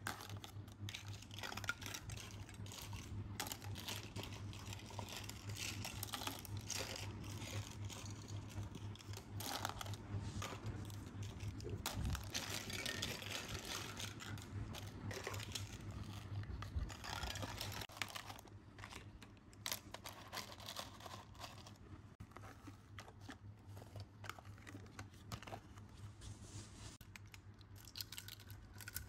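Small plastic toy kitchen pieces being picked up, moved and knocked together: irregular light clicks and clatters. A steady low hum runs underneath.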